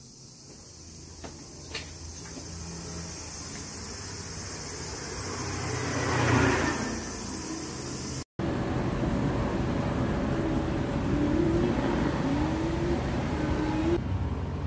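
Road traffic noise growing louder, with a car passing about six seconds in, swelling and fading. After an abrupt cut, a steady, louder rush of traffic noise with a faint wavering hum.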